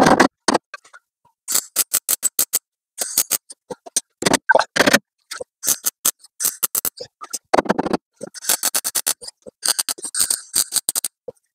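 MIG welder arc, shielded with CO2, welding a sheet-steel repair patch onto a car body panel. The arc makes a series of short crackling bursts with brief pauses between them.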